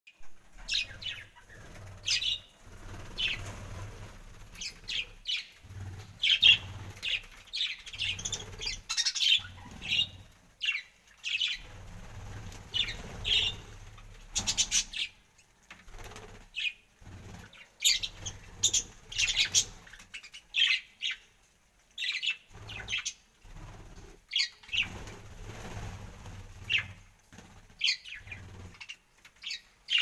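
A flock of budgerigars chirping and chattering, a steady stream of short, high calls, with wings fluttering as more birds fly down to the seed dish.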